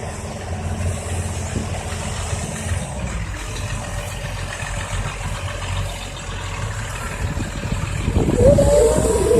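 Diesel engine of a tracked excavator running under work, a steady low rumble that grows louder about eight seconds in, with a wavering higher whine near the end.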